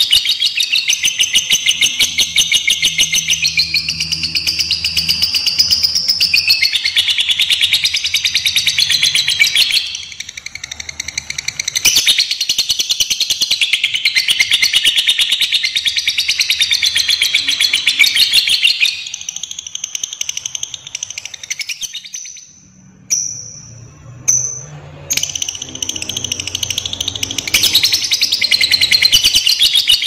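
Lovebird giving its long, very rapid chattering trill, the 'ngekek' sought in fighter lovebirds, almost without pause. The chatter breaks off briefly about ten seconds in. A quieter stretch past the middle holds a thin high whistle before the chatter resumes.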